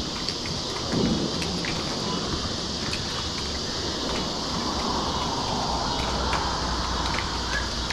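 Steady hiss of water moving through a spillway, with a low rumble of wind on the microphone and a few faint ticks.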